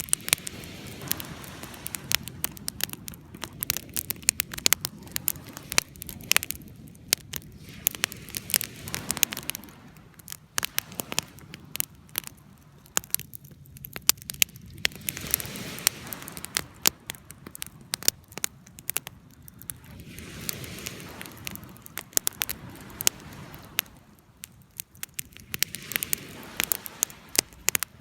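Fire crackling, with frequent sharp pops and snaps over a soft rush that swells and fades every few seconds.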